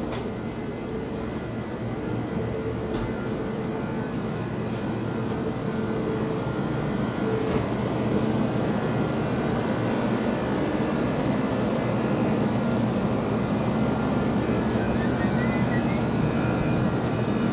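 Steady engine drone that slowly grows louder.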